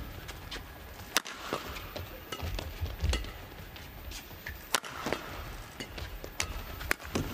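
Badminton rally: sharp, irregular racket strikes on the shuttlecock, a second or two apart, over the dull thuds of players' footwork on the court.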